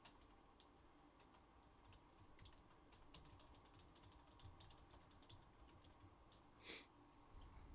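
Faint typing on a computer keyboard: scattered light key clicks at an uneven pace, with one brief soft hiss a little before the end.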